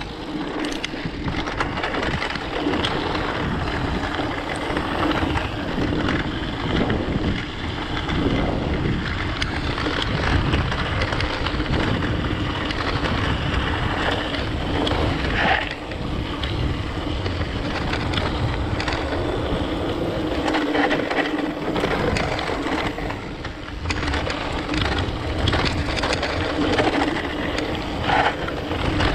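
Mountain bike being ridden on a rough dirt track: tyres rolling and crunching over loose stones, with many small rattles and knocks from the bike, and wind noise on the microphone.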